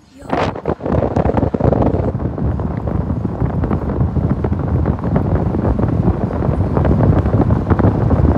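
Wind rushing across a phone's microphone held out of a moving car's window. It is a loud, steady wind noise with constant buffeting crackle, and it starts suddenly just after the start as the phone goes outside.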